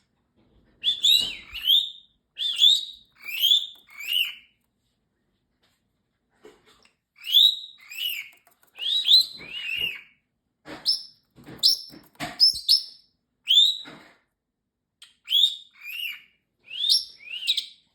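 Pet parrotlet chirping: short, sharp, high-pitched chirps in quick clusters, with a pause of a couple of seconds about a third of the way in.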